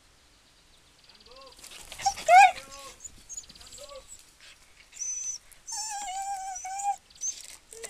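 A dog whining and whimpering in a series of high, wavering cries starting about a second in, with a sharp, loud yelp about two and a half seconds in and a longer held whine near six seconds.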